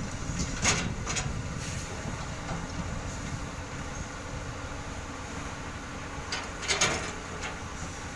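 Hydraulic excavator running steadily while it loads a dump truck with soil, with two short noisy bursts, about a second in and again around seven seconds in.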